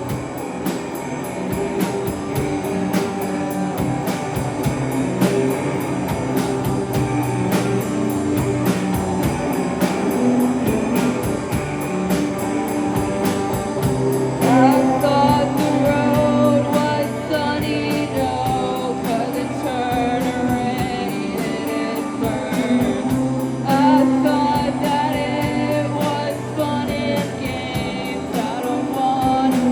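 Rock band playing live, drums keeping a steady beat under guitars, with a wavering lead melody coming in about halfway through.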